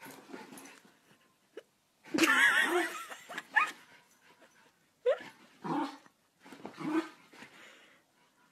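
Small dog and cat tussling and crying out: one loud wavering cry with hiss about two seconds in, then several short rising yelps.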